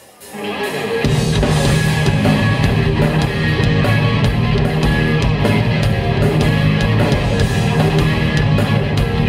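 Live rock band of drums, electric guitar and electric bass guitar starting a song: the sound swells up over the first second, then the full band comes in loud with a steady drum beat.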